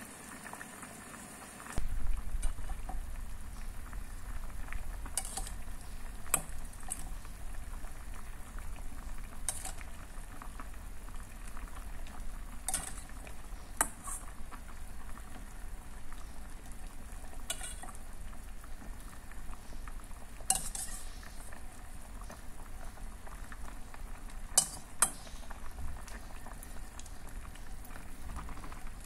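Soup bubbling in an aluminium pot of vegetables and whole shrimp, with scattered short clinks and knocks from a metal spoon on the pot as the shrimp go in and are stirred. A low steady rumble comes in about two seconds in.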